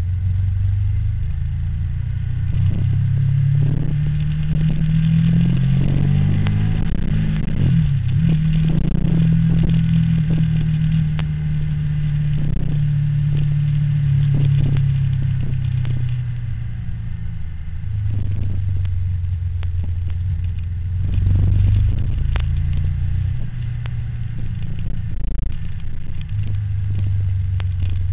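Engine running without a break, its pitch rising and falling as the vehicle speeds up and slows, with frequent clattering knocks over it.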